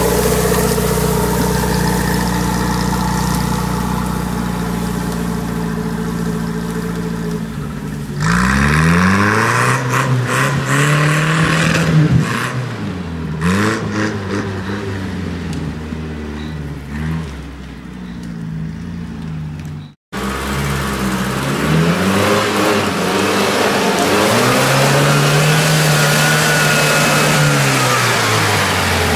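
UAZ-469 off-road engine running, at first at a steady pace, then revving up and down again and again as the vehicle works through mud and dry grass.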